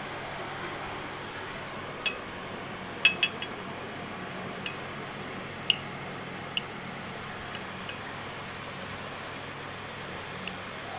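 Metal spoon clinking against a plate as food is scooped up: about ten light, sharp clinks at uneven intervals, the loudest a quick run of three about three seconds in, over a steady faint hum.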